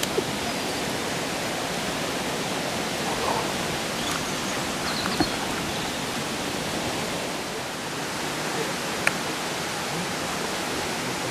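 Steady, even rushing noise, with a few faint ticks over it.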